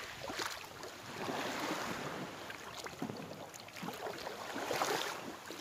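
Small sea waves washing in and out over a pebbly shore in shallow water, swelling and easing a few times.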